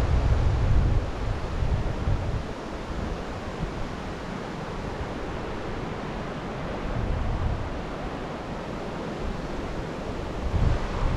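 Typhoon wind gusting against the microphone over a steady rushing noise. Heavy low buffeting eases after about two seconds and builds again near the end.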